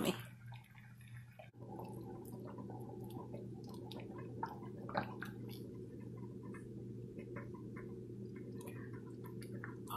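Pot of beef soup simmering on a gas stove: faint bubbling with small scattered pops over a steady low hum, the hum growing fuller about a second and a half in.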